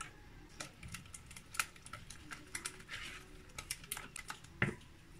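Whisk stirring thin liquid batter in a mixing bowl: a run of light, irregular clicks and taps of the whisk and spoon against the bowl, with one sharper knock near the end.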